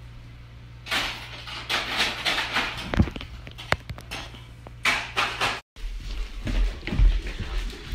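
Household handling noises at a refrigerator: rustling and clattering with clicks, and one sharper knock about three seconds in.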